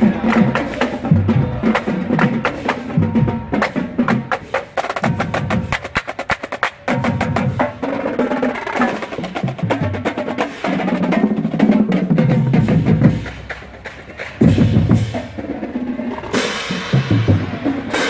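Marching band drumline playing a cadence while marching: rapid snare drum strokes over the pitched beats of tuned bass drums. Cymbals crash in near the end.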